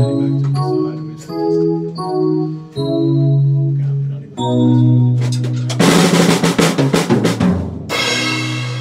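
A drum kit: a tune of held notes at first, then about six seconds in a fast drum roll that lasts about a second and a half and ends in a cymbal crash that rings out.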